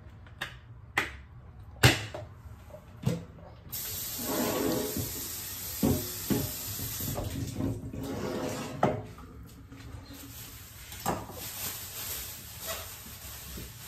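A plastic bag being handled, with a few sharp clicks and knocks. From about four seconds in, a kitchen tap runs steadily, with water splashing louder for a few seconds as something is held under the stream.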